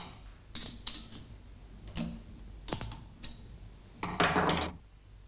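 Small metal parts clicking as a torsional spring is worked onto the QC lock sleeve of a Walterscheid K64 cam switch coupling: a series of sharp clicks, then a louder rattle lasting about half a second a little after four seconds in.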